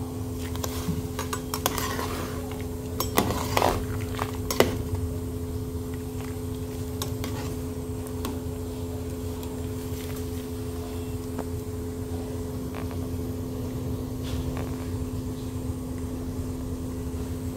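Water at a rolling boil in a large aluminium pot where a whole octopus is being blanched: a steady low rumble with a constant hum over it. A metal spoon clinks against the pot a few times about three to five seconds in as the octopus is turned.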